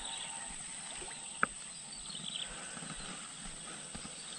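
Quiet open-air ambience with a steady high whine and a few faint high chirps, broken by one sharp click about a second and a half in from a Daiwa Exceler spinning reel being worked for a cast, with a few lighter clicks of reel handling after it.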